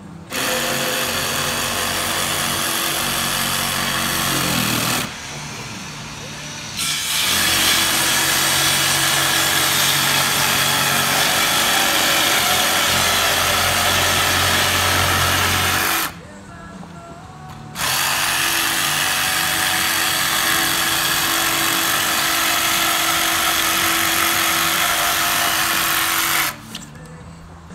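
Cordless DeWalt jigsaw cutting through the foam insulation core of a SIP panel, its blade run down along the inside of the OSB skin. It runs in three long stretches, with short pauses about five and sixteen seconds in, and stops near the end.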